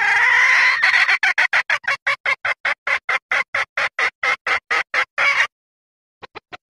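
Junglefowl hen calling: a long rising note that runs into a rapid string of short clucks, about four a second, which stops abruptly, then a few faint clucks near the end. It is a hen's mating call, used as a hunting lure to call in cocks.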